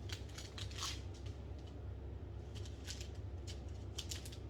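Small plastic bags of diamond-painting resin drills being handled and shifted about, giving brief irregular crinkles and rattles, over a steady low hum.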